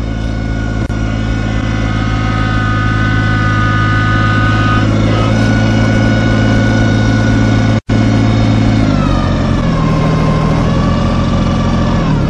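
A vehicle engine running steadily while it tows a loaded utility trailer, with a high whine riding above it. About nine seconds in the engine slows and the whine glides down in pitch. The sound cuts out for an instant a little before that.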